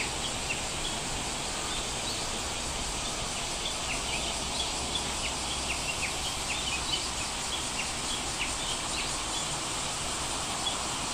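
Birds chirping over a steady outdoor background hiss: many short, high, falling chirps, a few a second.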